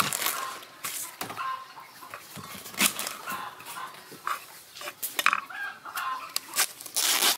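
Chickens clucking on and off, over sharp crackles and rustles of green corn husks as a knife cuts through an ear of corn on a wooden cutting board and the husks are peeled back.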